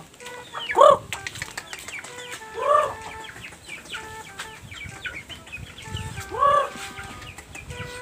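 Native chickens calling: chicks peeping in quick, high, falling chirps throughout, with three louder, drawn-out calls from the flock, about a second in, near three seconds and again after six seconds.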